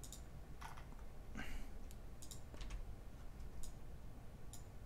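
Computer mouse clicking: several faint, scattered clicks, a few coming in quick succession.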